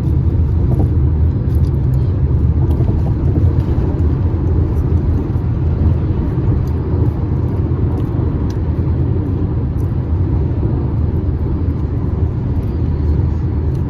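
Steady low rumble of tyres and road noise inside a moving car's cabin, with the air conditioning running.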